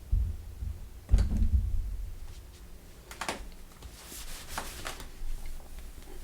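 A couple of low thumps, the stronger about a second in, then scattered short clicks and rustles.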